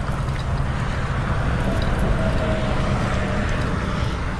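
Highway traffic: a passing vehicle swells toward the middle and eases off near the end, over a steady low rumble.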